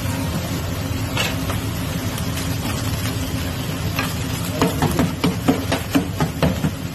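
Steady frying sizzle from a large round metal pan of chopped meat and fat, over a low hum. From about halfway in, a metal spatula scrapes and taps across the pan in a quick run of strokes, about three a second.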